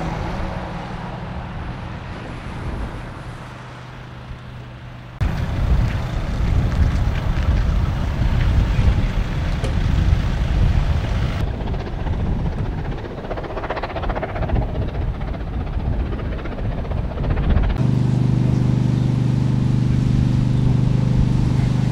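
Outdoor vehicle noise with wind buffeting the microphone and fire-engine diesels idling. The sound changes abruptly three times, and a steady low engine hum takes over for the last few seconds.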